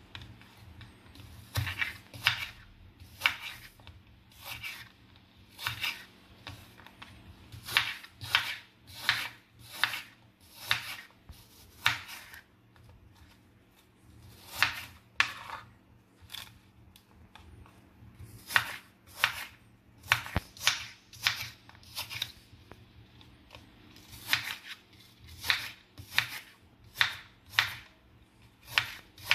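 Knife cutting crisp apple slices into small pieces on a wooden cutting board: a series of short crunchy cuts, about two a second in runs, broken by brief pauses.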